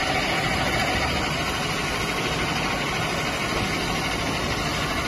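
Plastic pipe perforating machine running, a steady, even mechanical noise.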